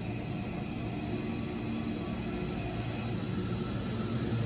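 Hankyu electric commuter train starting to pull away from the platform: a low rumble with a steady electric hum of several held tones, growing slightly louder as it gets moving.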